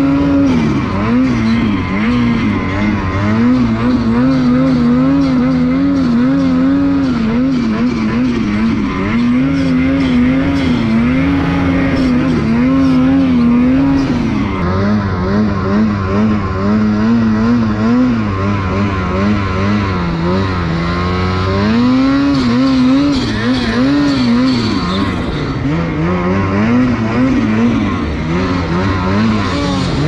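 2021 Ski-Doo turbo snowmobile's two-stroke engine revving under load in deep powder, its pitch rising and falling every second or two as the throttle is worked.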